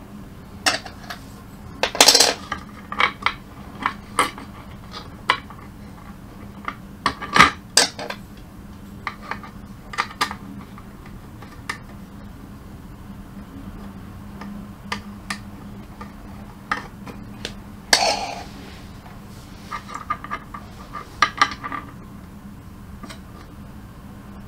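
Scattered clicks, taps and light knocks of a plexiglass printer bed and its small hardware being handled and fitted onto the carriage, with the loudest knocks about 2, 7 and 18 seconds in. A faint steady low hum runs underneath.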